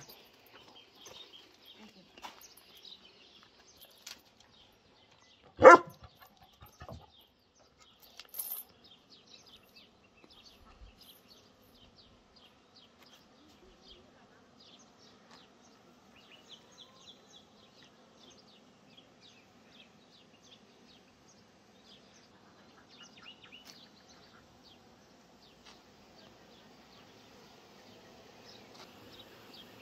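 A dog barks once, loudly, about six seconds in, over a steady scatter of small high bird chirps. In the second half a low buzz of honeybees around the beehives sets in and grows louder toward the end.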